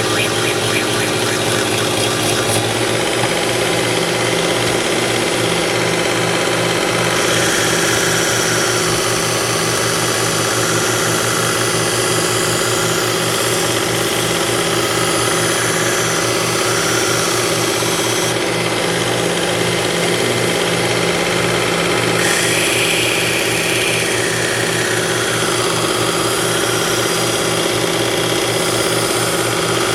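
Work Sharp Ken Onion Edition electric belt sharpener running steadily at reduced speed with a leather strop belt, a steady motor hum under a constant hiss. A knife is being stropped on the compound-loaded belt to take off the burr, and the hiss shifts at a few points.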